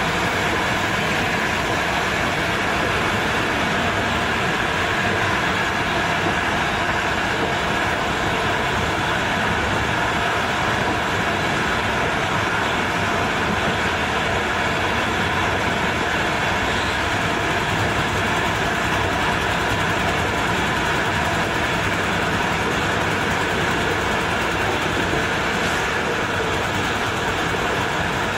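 Passenger train running steadily along the track, a constant loud rail and wheel noise heard from on board.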